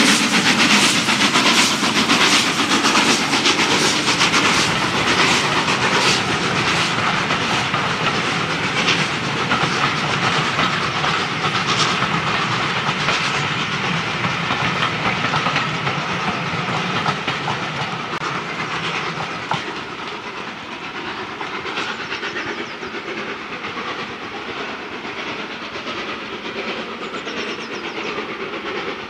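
A steam-hauled passenger train passing close by: exhaust beats and wheels clicking over rail joints as the locomotive and its coaches go past. The sound fades in the second half as the train draws away.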